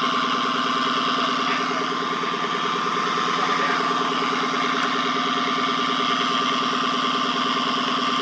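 Driveline noise through the driveshaft tunnel of a 2014 Dodge Charger Pursuit, heard inside the cabin while driving: a steady whine over a fast, even pulsing. The owner takes it for a failing driveshaft hanger (carrier) bearing.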